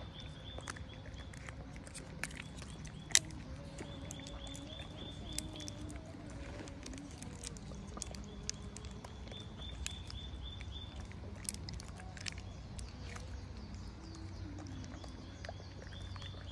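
A macaque handling and eating from a small plastic jelly cup: scattered light plastic clicks and crinkles, with one sharper click about three seconds in. A high pulsing buzz comes and goes in the background.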